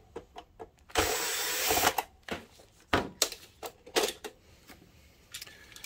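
A 12-volt cordless drill-driver whirs for about a second, backing out a small screw from a projector's lamp door. It is followed by several sharp plastic clicks and knocks as the lamp module is worked loose and lifted out.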